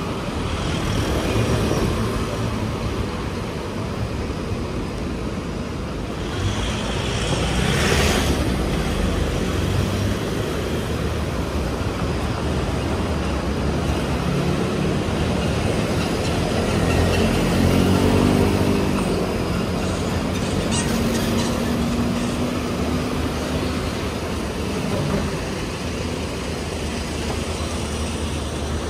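Street traffic on a city road, with cars and motorbikes passing. One vehicle goes by louder about eight seconds in, and an engine drones for a few seconds about halfway through.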